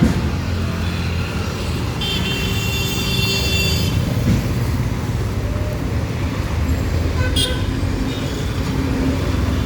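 Steady low rumble of road traffic, with a high-pitched horn-like toot lasting about two seconds near the start and a single sharp click later on.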